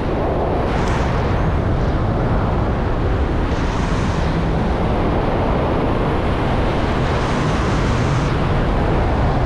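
Steady, loud rush of airflow buffeting the microphone of a speed-flying pilot in fast flight.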